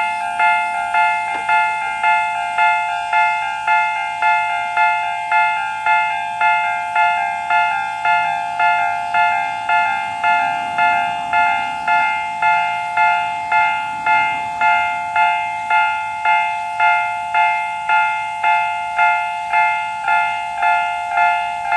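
Japanese railway level-crossing warning bell ringing continuously, an electronic ding-ding with several tones, struck evenly about one and a half times a second.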